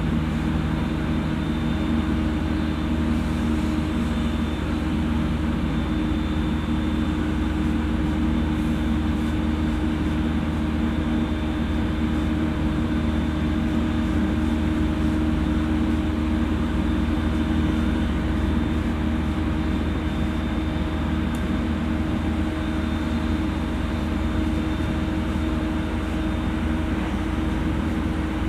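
JR East E231 series electric commuter train running at steady speed: a continuous rumble of wheels on rail with steady, unchanging motor tones.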